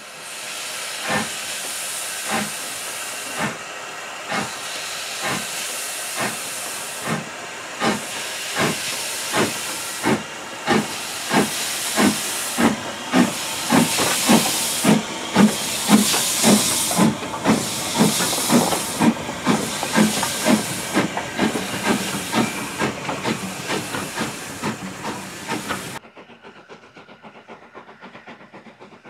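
Steam tank locomotive pulling away with its train: chuffing exhaust beats over a steady hiss of steam, quickening from about one a second to nearly two a second as it gathers speed. About three seconds before the end the sound cuts to the fainter running of another steam train.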